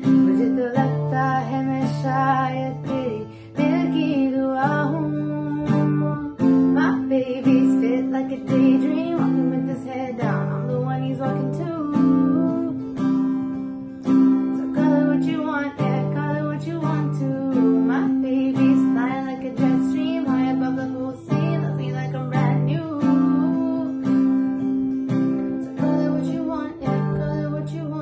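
Acoustic guitar strummed in chords while a woman sings along.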